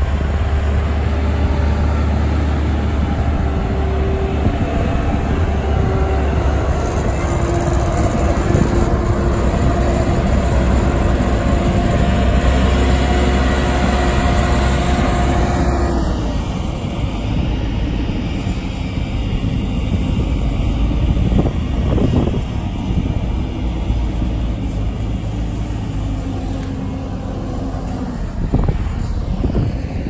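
A telehandler's engine running steadily with a deep hum under wind on the microphone. About halfway the engine sound drops away, leaving wind noise and a couple of short knocks.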